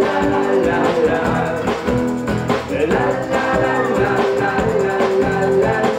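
Live band playing an upbeat children's song on acoustic guitar, acoustic bass guitar and drum kit, with steady drum strokes under held notes.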